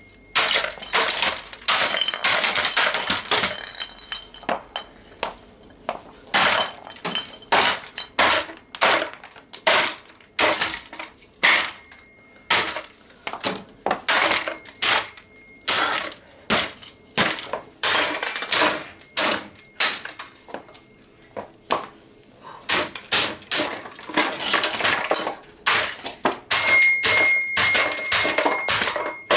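A 1/5-scale radio-controlled car being smashed apart with repeated blows, its plastic and metal parts cracking and clattering. The strikes come in quick, irregular runs of several a second, with brief pauses and an occasional short metallic ring.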